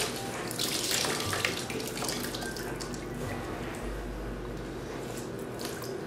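Water splashing and dripping into a plastic tub of water as a wet towel is wrung out over it. It is strongest in the first second or two, then drops to fainter trickling and drips.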